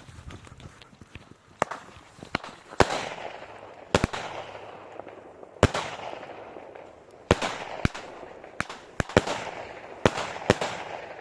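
Triplex TXB820 'yellow peony' firework cake firing its shots: sharp pops and louder shell bursts, one every one to two seconds, each big burst trailing off over about a second.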